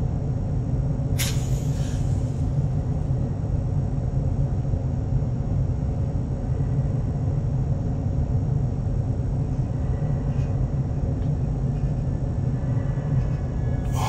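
Low, steady rumbling drone of a horror film's ambient sound design, with one sharp click about a second in.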